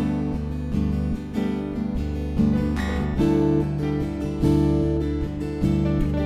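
Instrumental background music with strummed guitar chords and a steady rhythm.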